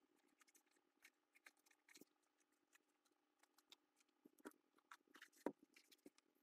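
Faint scattered clicks and crinkles of a cardboard helmet shell being handled and turned over in the hands, coming more often in the second half, the loudest near the end, over a faint steady hum.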